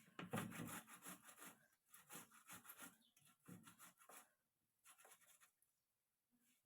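Tomato being grated by hand into a clay tagine: faint repeated scraping strokes, about one a second, thinning out near the end.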